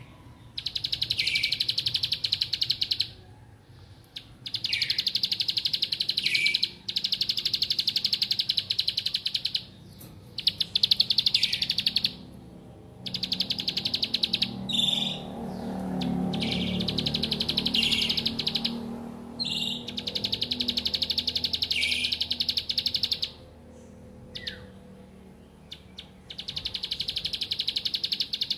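Caged ciblek (prinia) singing its fast buzzing trill in bursts of one to a few seconds with short pauses, many bursts opening with a short downward-sweeping note. A low rumble sits faintly under the song in the middle.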